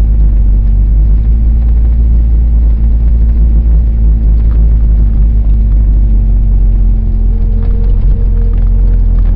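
Vehicle engine running steadily at low speed, a loud low rumble with a steady hum; a higher steady note joins about seven seconds in.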